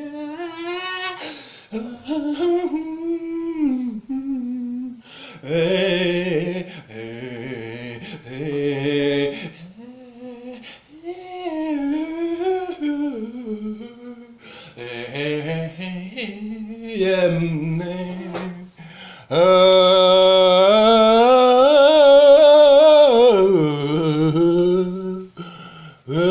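A man's voice making wordless hums and sung tones that slide up and down in pitch, some with a breathy hiss over them. About two-thirds of the way through comes a loud held tone with a wavering pitch for about four seconds.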